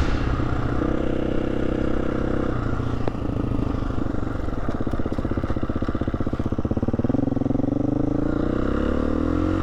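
Motorcycle engine running at a steady speed, then revving up as it accelerates from about seven seconds in.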